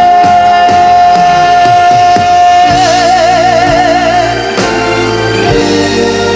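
Trot song performed live with a band: a male singer holds one long high note, steady at first and then with a wide vibrato from about three seconds in. The note ends about four and a half seconds in, over a steady drum beat, and the band plays on with keyboard.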